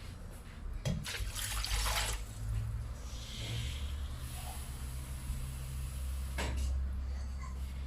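Water poured or running into a cooking pot, in two hissing spells, with a knock of the pot about a second in and another near the end, over a steady low hum.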